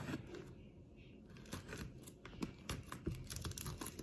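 Plastic wrapping on a boxed tarot deck being cut and pulled open: a run of crinkles and small clicks, busiest in the second half.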